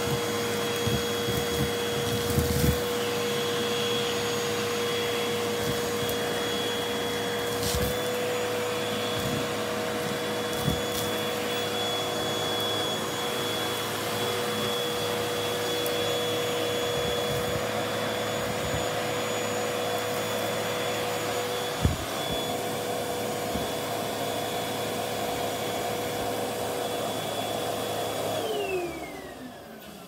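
Vacuum cleaner running with its hose nozzle on the carpet: a steady motor whine with a few scattered clicks. Near the end it is switched off, and the whine falls in pitch as the motor spins down.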